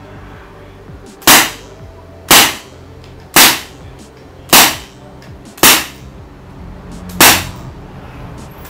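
Gamo PR 725 CO2 air revolver firing six sharp shots about a second apart, each with a short ringing tail, and a seventh right at the end, fired with the hammer pulled back (single-action).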